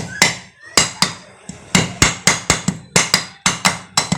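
Hammer tapping a new oil seal into its bore in a Hero Pleasure Plus scooter's gearbox casing: a quick series of sharp taps, about three a second, with a couple of short pauses.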